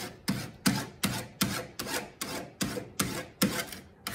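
Hand file drawn repeatedly across the edge of a thin copper plate, about three quick strokes a second, taking off the sharp edge of the bevel.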